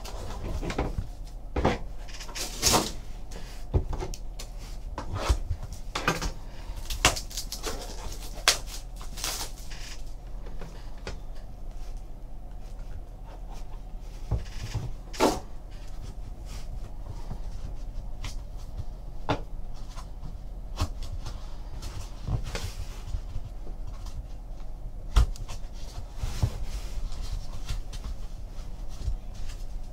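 Upper Deck Exquisite Basketball hobby box and its inner case being opened and handled: scattered clicks, knocks and light rubbing as the lid is lifted and the case is taken out. The handling is busiest in the first ten seconds and sparser after. A low steady hum runs underneath.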